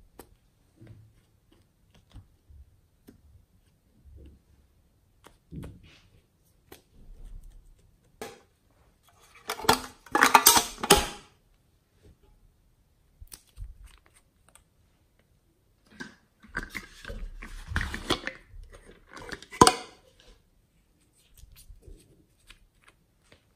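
Small bottles being handled by hand: scattered clicks and taps, with a loud crackling spell about ten seconds in and another cluster of crackles and knocks from about sixteen to twenty seconds in.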